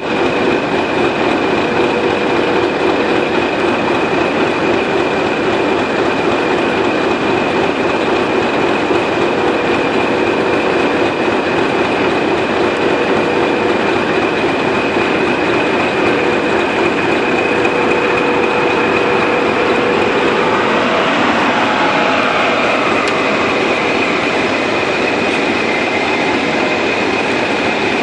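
Class 20 diesel locomotive engine idling at a standstill, a steady drone with a high whistle above it. From about two-thirds of the way through, a High Speed Train runs past on the next line, its sound falling in pitch as it goes by.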